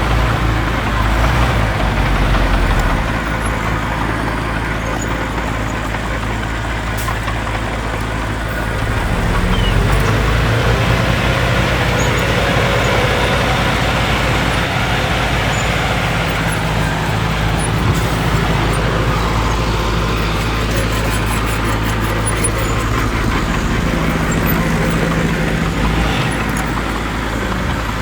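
Diesel engines of earthmoving machinery (dump trucks and a small bulldozer) running, their note and loudness shifting with the work, louder for a stretch about ten seconds in.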